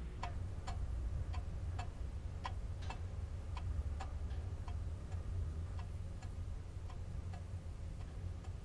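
Pendulum wall clock ticking in an uneven tick-tock rhythm, about two ticks a second, over a low steady hum.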